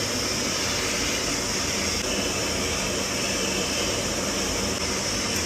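Steady rushing hum of a Power Flame gas power burner's blower and the boiler-room machinery running, even in level throughout.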